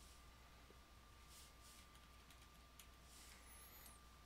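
Near silence: room tone with a faint steady tone and a few faint computer keyboard keystrokes.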